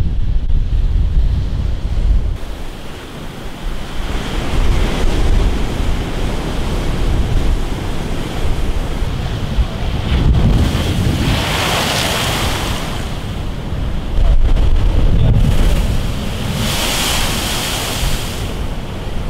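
Storm-driven surf breaking against a concrete sea wall, with wind buffeting the microphone in a low rumble. Two louder crashes of breaking water and spray come in the second half.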